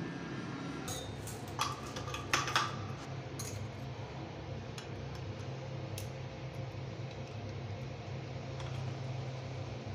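Chrome shower fittings clinking and tapping as the hand shower and its wall holder are handled and fitted together: a few sharp metallic clicks, most in the first three seconds and one more about six seconds in, over a steady low hum.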